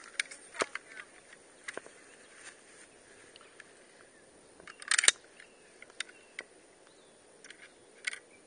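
Scattered light metallic clicks from an M1 Carbine being handled and a round being loaded into it by hand, with a louder, quick rattle of clacks about five seconds in.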